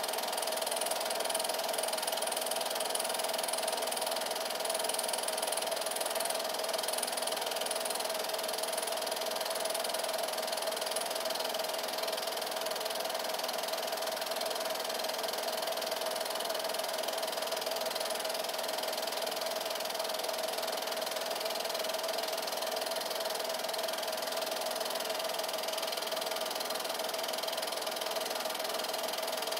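8mm film projector running: a steady motor whir with a constant mid-pitched hum.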